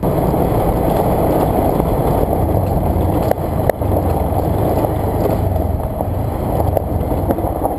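Motorcycle engine running steadily as the bike rides along a dirt track, with a dense rumble of engine, tyres and wind. Two short knocks a little past three seconds in.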